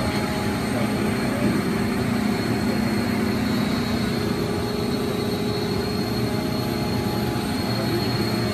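Steady hum and whir of machinery running in a large aircraft hangar, with a constant high whine over a low drone and no change throughout.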